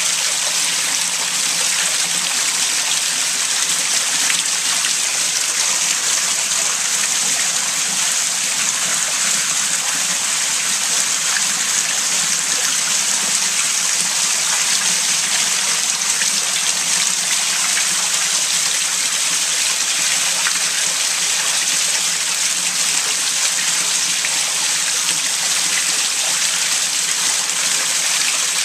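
Sewage welling up into a basement toilet bowl, the dark water churning with a steady rushing sound. It is the sign of the sewer line backing up under heavy rain.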